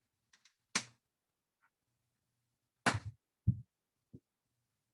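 Plastic Lego bricks being handled and pressed onto a model: a few short clicks and knocks, the loudest about a second in and three seconds in.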